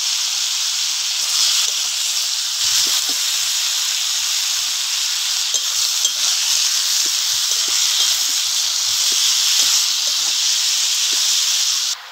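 Ridge gourd and potato pieces sizzling steadily in hot mustard oil in a wok while they are sautéed, with light scrapes and taps of the spatula against the pan as they are stirred.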